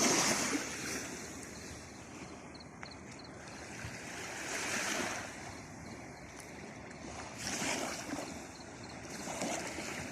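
Sea waves washing in on the shore, a steady hiss of surf that swells every couple of seconds, loudest at the start and again about five, eight and nine and a half seconds in.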